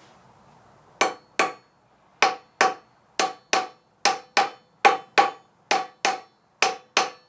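Hammer blows on a steel plate disc, struck in quick pairs about once a second, each blow with a short metallic ring. The disc is being driven down onto a tight-fitting pipe with a plastic sleeve.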